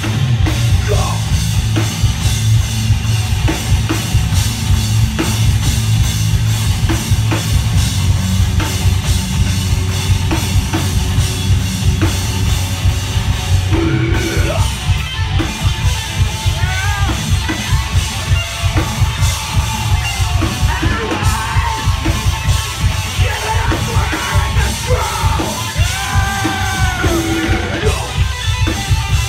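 Live heavy rock band playing loud and fast: pounding drum kit and electric guitar, with yelled, sung vocals coming in strongly through the second half.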